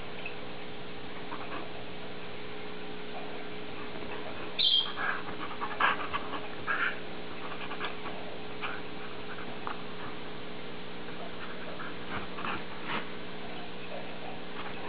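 Standard poodle snorting in short bursts as she play-bites a hand. The bursts are loudest and most frequent about five to seven seconds in, with scattered softer ones later.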